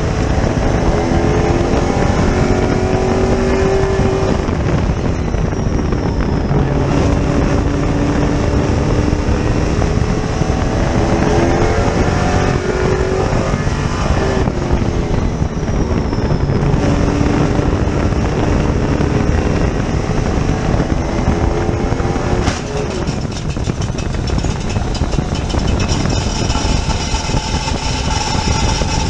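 Sportsman oval-track race car's engine at racing speed, heard from inside the cockpit, its note rising and falling as the car accelerates and lifts around the track. About twenty-two seconds in there is a sharp crack and a brief dip in loudness, after which the engine settles into a steadier tone.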